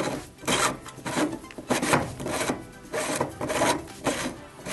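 Threaded white PVC cleanout cap on the bottom of a rain-gutter first-flush diverter being twisted loose by hand. The plastic threads grind in short, irregular strokes, about two a second, one for each turn of the grip.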